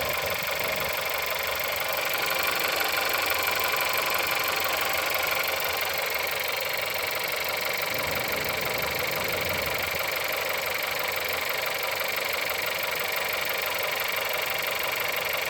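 Car engine idling with a knock in the engine, on an engine with about 176,000 on the odometer. It gets a little louder for a few seconds about two seconds in.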